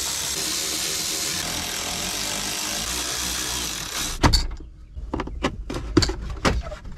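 A cordless electric ratchet runs steadily while backing out the radio bezel screws, then stops about four seconds in. A string of sharp clicks and knocks follows as plastic dash trim is pried loose with a trim tool.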